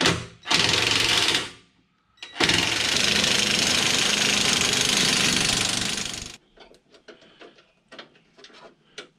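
A power tool running on a bumper bolt in two bursts, a short one and then a steady one of about four seconds; the bolt seems to be stripped.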